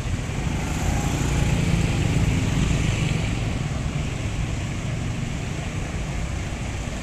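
Road traffic on a wet street: a Mercedes-Benz OH 1626 coach's diesel engine running as it moves slowly forward, mixed with motorcycles passing close and a steady tyre hiss off the wet road. The rumble swells about a second in and eases off after about three seconds.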